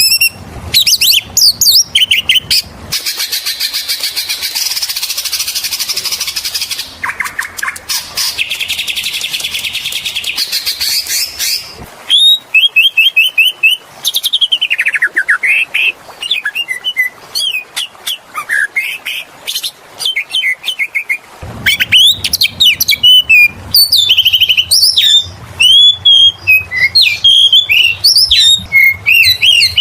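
Oriental magpie-robin (kacer) in full song. About three seconds in it breaks into a long, fast, buzzy rattle lasting several seconds. It then switches to a quick run of loud, varied whistled phrases with sharp falling slurs.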